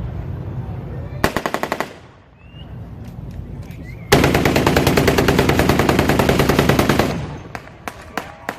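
Machine gun firing: a short rapid burst about a second in, then a long burst of about three seconds starting about four seconds in, followed by a few scattered single shots near the end.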